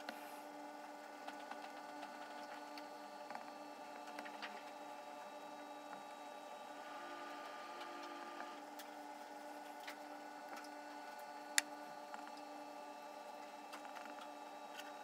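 Apple Pencil (1st gen) tip tapping and writing on an iPad screen with a screen protector: scattered light ticks, one sharper click past the middle, over a steady hum.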